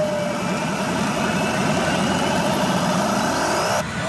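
Pachinko machine's reach sound effect: a steady, dense rumbling noise, with a falling tone fading out at the very start and a rising sweep starting near the end.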